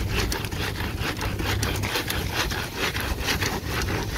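Quick back-and-forth scrubbing on the expanded-metal grid of a braai, about five or six scraping strokes a second.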